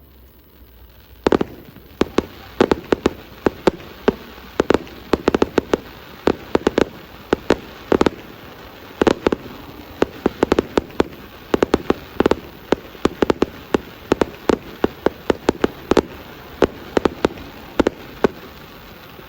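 Fireworks bursting in a rapid, irregular string of sharp bangs, several a second, starting about a second in.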